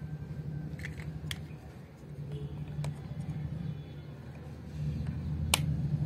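A few sharp clicks, the loudest near the end, over a low steady hum.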